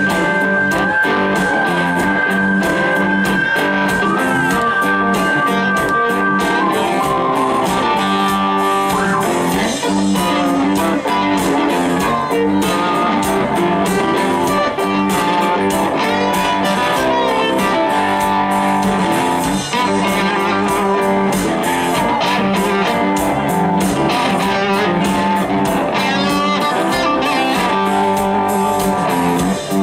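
Live rock band playing an instrumental passage with no singing: electric guitars, drums and keyboard. A long held high note runs through the first six seconds or so, and more held and bending notes follow.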